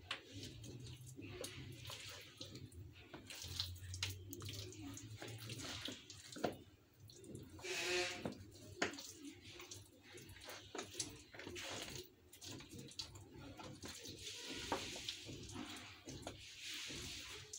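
Chicken frying in oil in a pan: a faint, steady sizzle with irregular small crackles, the oil not yet very hot.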